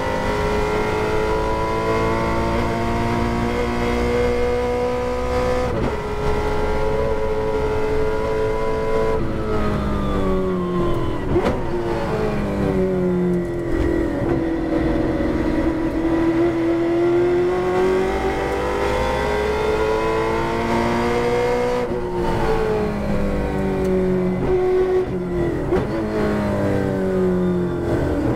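Holden Torana touring car's V8 engine under hard acceleration, heard from inside the cockpit, its pitch climbing and dropping through gear changes, then falling as the speed comes down under braking near the end.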